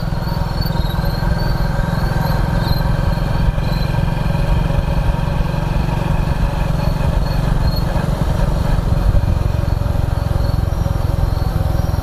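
Motorcycle engine running steadily while riding, with crickets chirping in faint high-pitched pulses over it in the first few seconds.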